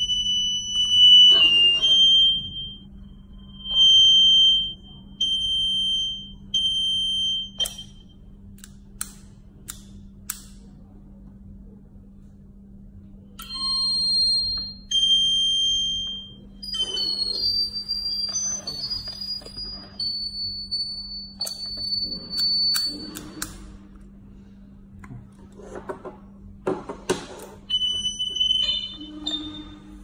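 Electronic beeps from a video intercom indoor monitor as its buttons are pressed: several short high beeps in the first eight seconds, then more beeps and a run of tones at changing pitches, with a few sharp clicks in between.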